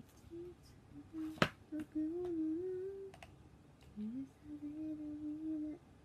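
A young woman humming a tune softly to herself in short wandering phrases. A single sharp click about one and a half seconds in is the loudest sound.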